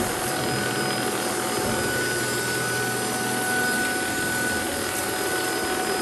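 Hoover Evolve cordless stick vacuum running steadily as it is pushed across a tile floor picking up rock salt: an even rush of air with a steady high motor whine.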